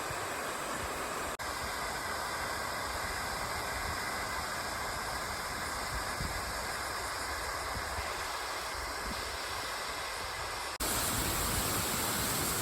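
Steady rushing of a waterfall, an even wash of water noise. It breaks off for an instant about a second in and again near the end, running a little louder after the second break.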